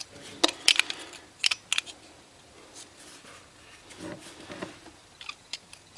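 Light metal clicks from the dials and discs of a cut-open combination lock being turned into line, several sharp ones in the first two seconds, then softer handling and a few fainter clicks near the end.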